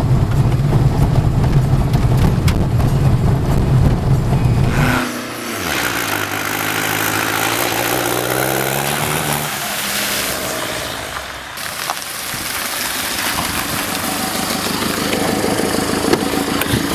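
Heavy, steady rumble of a car driving along a gravel track, heard from inside the cabin. About five seconds in it changes abruptly to a small hatchback's engine revving, its pitch rising and falling as it drives over rough, muddy ground.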